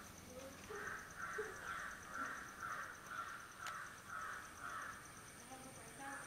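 A bird giving a fast run of rasping calls, about two a second, which stops about five seconds in.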